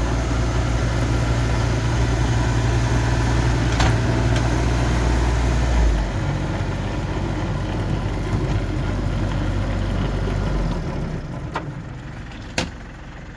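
Old tractor engine running with a rear-mounted snowblower, a steady low drone that drops in level about six seconds in and winds down around the ten-second mark. A single sharp knock comes near the end.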